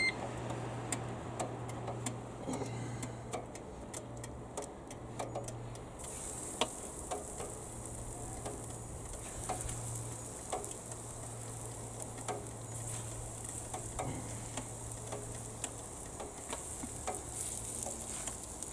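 Battered pork loin steaks sizzling and crackling on a hot grill, with a steady low hum underneath. The sizzle gets louder about six seconds in.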